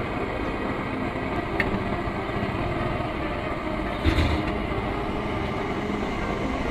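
Steady low engine rumble, like an idling vehicle, with a short knock about four seconds in.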